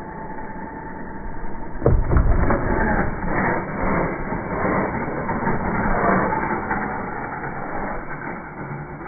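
Slowed-down, deep-pitched sound of an RC car jumping: a steady motor whine, then a loud hit about two seconds in as it strikes the ramp, followed by a low rumble and clattering as it flies and lands.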